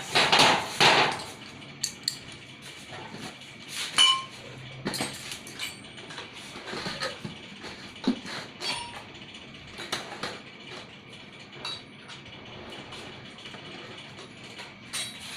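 Hard parts of a water pump being handled during disassembly: scattered clinks, knocks and clicks, with a louder cluster at the start and one sharp ringing clink about four seconds in.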